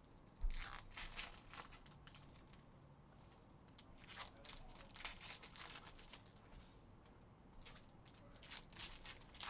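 Foil wrappers of 2021 Panini Phoenix football card packs being torn open and crinkled by hand, in short scattered bursts. A dull thump about half a second in is the loudest sound.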